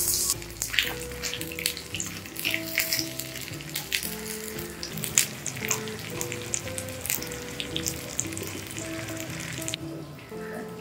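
Chopped vegetables frying in oil in a tiny clay pot, sizzling with frequent sharp pops and crackles that die away near the end, over soft background music.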